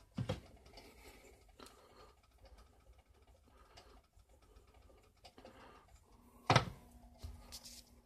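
A spatula knocking against a skillet, once just after the start and more loudly about six and a half seconds in, with faint scattered ticking and crackling between as the eggs fry.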